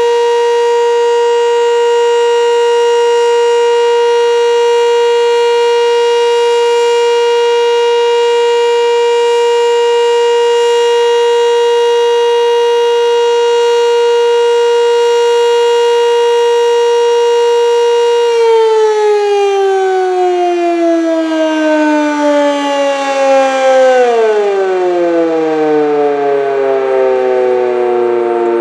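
Sentry 7V8 tornado siren sounding a steady alert tone during its monthly test, then cutting power and winding down, its pitch falling slowly for several seconds and then more steeply near the end.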